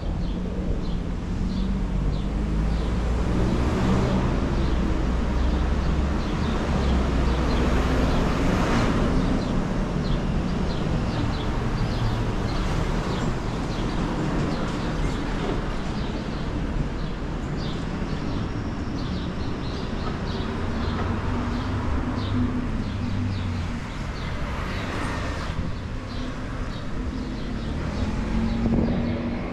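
City street traffic: a steady rumble of idling and moving vehicle engines, with cars passing close by about nine seconds in and again around twenty-five seconds.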